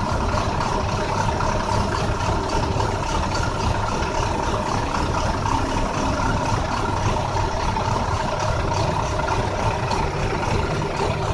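2009 International bus engine running at a steady speed with a bad misfire, its low pulsing uneven.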